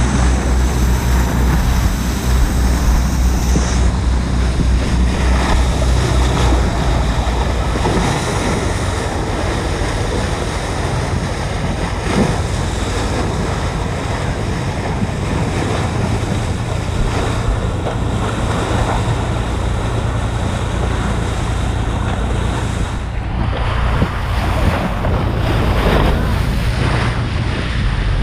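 Bow wave rushing and spraying along a moving boat's hull, with heavy wind buffeting the microphone and a steady low rumble underneath. It surges a few times near the end.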